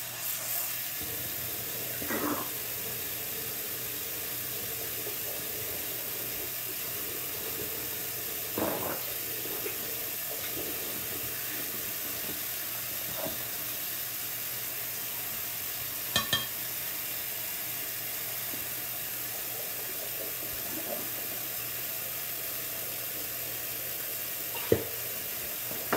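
Bathroom sink tap running steadily into the basin, with a few short knocks against the sink.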